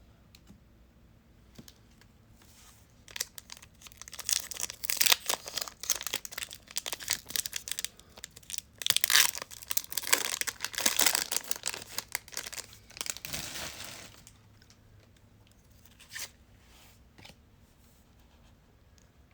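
Trading card pack wrapper being torn open and crinkled: a dense crackling run of tearing and crumpling from about three seconds in to about fourteen seconds, followed by a few faint taps.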